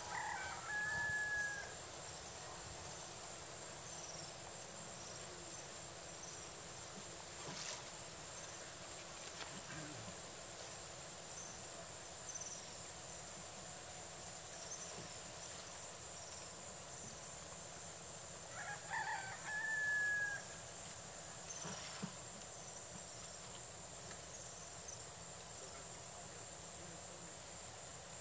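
A rooster crowing twice, once right at the start and again about two-thirds of the way through, each crow ending on a held high note. Between the crows is a steady outdoor hiss with faint, short high chirps.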